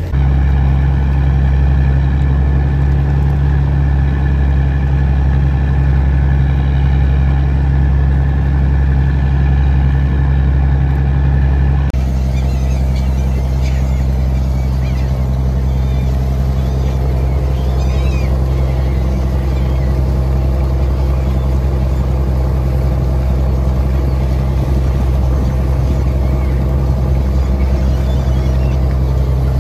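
Fishing boat's diesel engine running steadily, a deep even drone. The drone changes abruptly about twelve seconds in, and after that faint high calls of gulls flocking over the wake come through above it.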